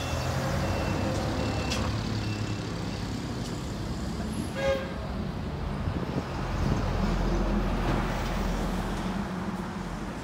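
Diesel truck engine running steadily with street traffic around it. A short horn toot about halfway through, and a deeper engine rumble swells up a second or two later.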